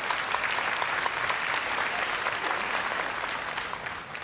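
Applause, a group clapping, fading out near the end.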